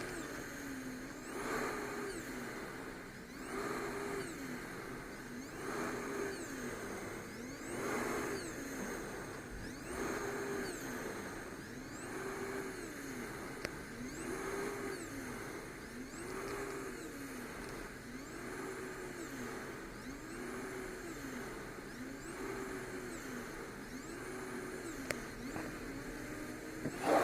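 Small travel CPAP machine running at 10 cmH2O with pressure-relief flex at 3. Its blower tone rises and falls in a regular cycle about every two seconds, and a hiss of air swells with each rise.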